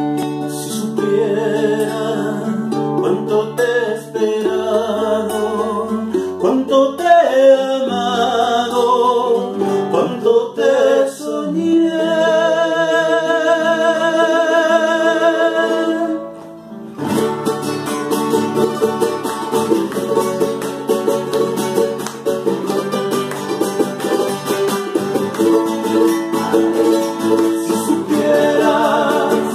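Live acoustic duo: a nylon-string classical guitar and a small, bright strummed string instrument playing an instrumental passage of a romantic song. The playing breaks off briefly about halfway through, then picks up again.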